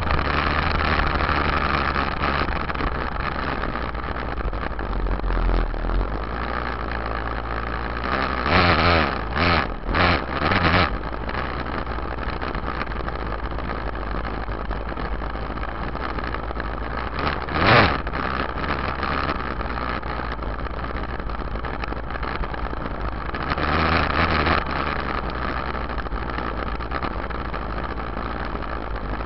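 Yamaha YZ dirt bike engine running under way, heard close up from a camera on the rear fender. The engine rises and falls in three quick surges about nine to eleven seconds in, gives a short sharp burst near eighteen seconds, and swells again around twenty-four seconds.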